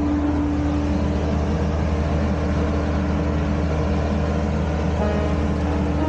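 Heavy vehicle engine idling: a steady low hum with a constant drone. Faint musical tones come in near the end.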